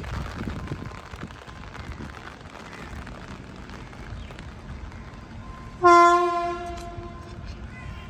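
Horn of an approaching WAP-5 electric locomotive: one loud, shrill, steady blast starting suddenly about six seconds in and lasting about a second and a half, over a steady rumbling background.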